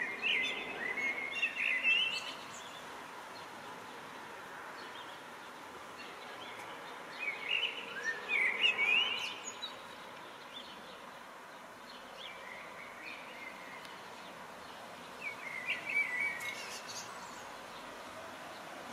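Small songbirds chirping in three short bursts of quick twittering calls, with quieter stretches between.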